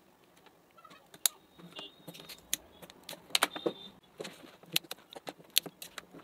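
Irregular sharp plastic clicks and snaps as the snap-fit housing of a Bluetooth neckband's control unit is pried open with a small metal tool, with a couple of brief high squeaks.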